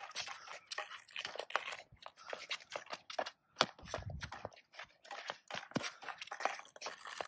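Field hockey stick tapping and dragging the ball in quick, irregular dribbles, with shoes scuffing on the hard court surface.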